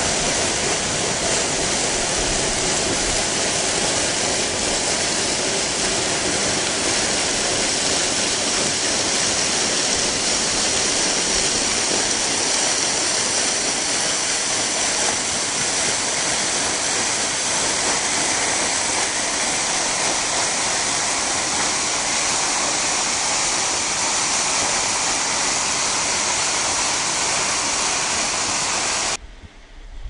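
Waterfall: falling water making a loud, steady, unbroken rush that cuts off suddenly near the end.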